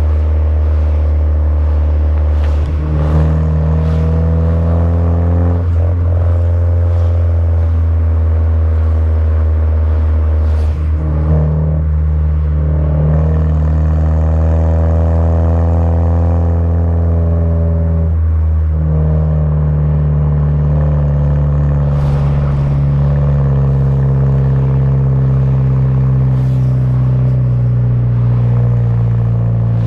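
Turbocharged 2.0-litre four-cylinder of a Jetta GLI Mk6 running through an aftermarket downpipe and cat-back exhaust, with a steady, deep exhaust note. The pitch drifts gently and shifts a few times, about 3, 11 and 18 seconds in.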